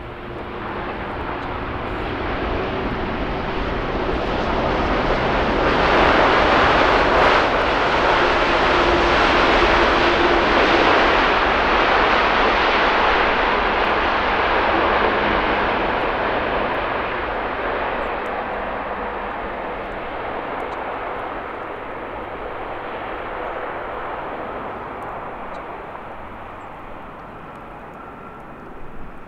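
Boeing 787-9 jet engines (GE GEnx) on the landing roll just after touchdown: a broad jet roar that builds over the first few seconds, is loudest from about six to fifteen seconds in as reverse thrust is applied, then slowly fades as the airliner slows.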